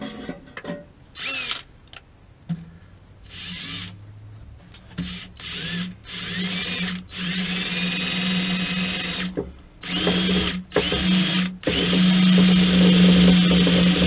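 Cordless drill boring a small drain hole low in the metal casing of a flooded gas water heater. It runs in several spurts that each rise in pitch as the motor spins up, then holds one steady run for the last two seconds or so.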